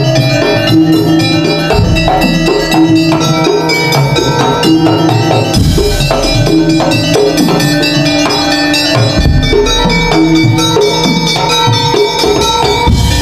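Madurese tong-tong ensemble playing an instrumental passage: barrel drums keep a busy rhythm under ringing metal bars struck with mallets. A deep stroke lands about every three and a half seconds.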